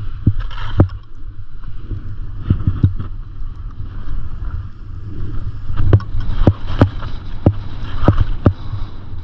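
Wind buffeting the microphone of a camera carried by a skier going downhill, over the hiss of skis running on snow. About ten sharp knocks break through, most of them in the second half.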